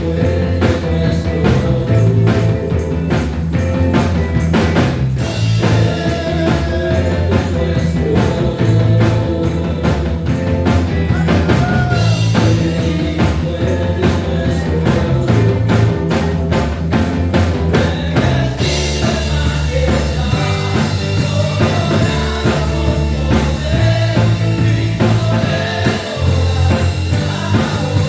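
Christian worship band music with drums and a strong bass line keeping a steady beat; about two-thirds of the way through the high end fills out into a denser, continuous wash.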